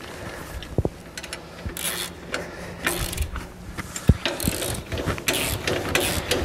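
17mm socket ratchet clicking in short repeated runs as the bolts of a jockey-wheel clamp bracket are tightened, with a few sharp metal clinks.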